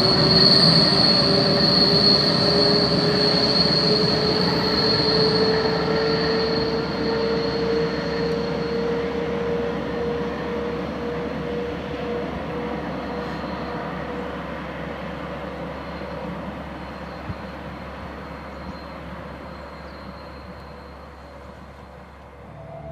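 ÖBB class 1144 electric locomotive pushing a train away under power on wet rails, its wheels squealing from macro-slip: the wheels are slipping slightly for lack of grip. A high squeal fades out over the first several seconds while a lower hum rises slightly in pitch, and the whole sound dies away steadily.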